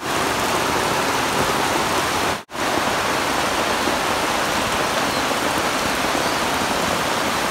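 Heavy rain pouring onto shallow floodwater and wet ground, a steady dense hiss of drops hitting water. It breaks off for an instant about two and a half seconds in, then carries on.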